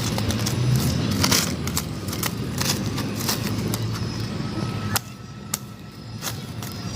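Irregular sharp clicks and taps over a steady low hum, stopping about five seconds in, with one more click shortly after.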